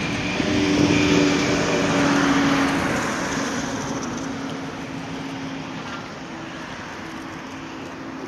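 Boeing 787-8 jet engines at takeoff power as the airliner rolls away down the runway. A steady rushing jet noise with a low hum in it, loudest a second or two in, then fading steadily.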